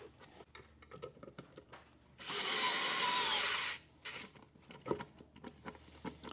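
Vessel 220USB P1 electric screwdriver running for about a second and a half, about two seconds in, driving a screw through a metal strike plate into plywood, then stopping abruptly. Light clicks and taps of handling the screw and plate come before and after the run.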